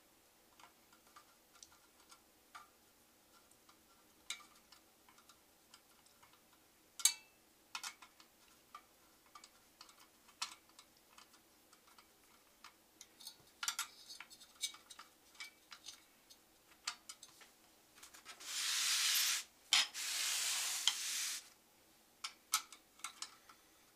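A hand screwdriver turns the CPU cooler's mounting screws, giving small scattered clicks and ticks of metal on metal. About 18 seconds in comes a few seconds of scraping, the motherboard being slid and turned on the wooden desk.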